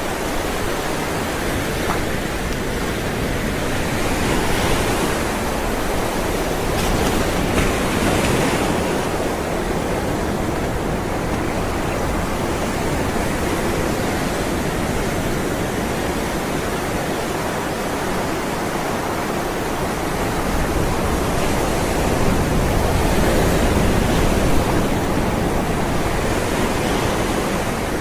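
Ocean waves rolling onto a shore: a steady wash of surf, swelling a little as waves break, about four and eight seconds in and again later on.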